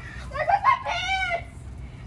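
Young women's voices: short yelps, then a high-pitched squeal about a second in, as one of them tumbles off a swing.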